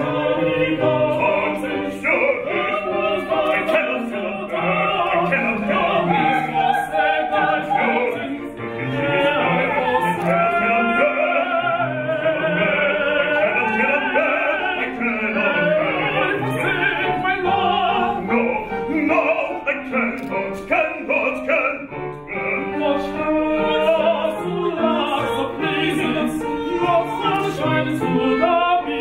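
Baroque operatic singing: a man and a woman singing a duet in classical style, their lines overlapping.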